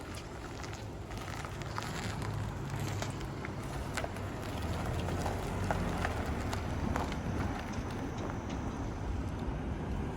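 Steady low rumble of traffic, with small clicks and taps scattered through it.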